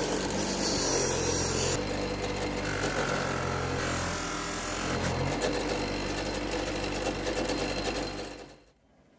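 Bench polisher motor running steadily while a metal clamp bracket is held against its spinning buffing wheel. The hum changes pitch twice, and the sound fades away near the end.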